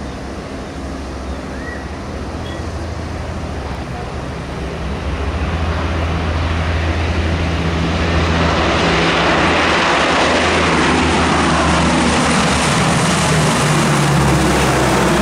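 Lockheed C-130 Hercules four-engine turboprop at takeoff power, a steady low propeller drone over a broad engine roar. It grows louder about halfway through as the aircraft lifts off and climbs past.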